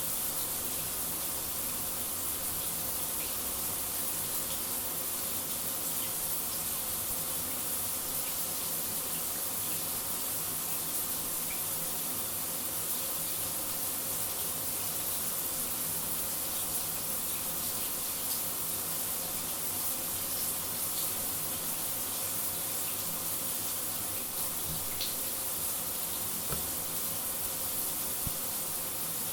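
Shower running steadily, a continuous hiss of water spray with a faint steady hum underneath.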